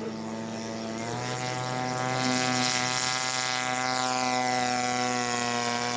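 Radio-control scale model airplane's engine running in flight, its pitch rising about a second in and then holding steady as it grows louder.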